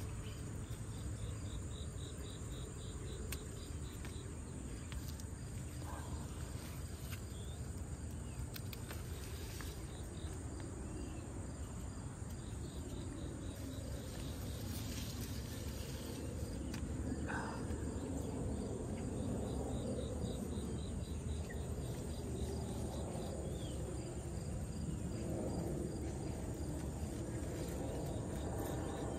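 Insects chirring steadily, with a short pulsing trill in the first few seconds. Over it, leaves and bean vines rustle as they are handled, louder in the second half, along with a few light snips of hand pruning shears.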